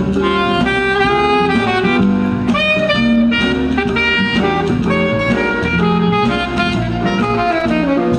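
Instrumental jazz music with a saxophone carrying the melody over a steady bass line.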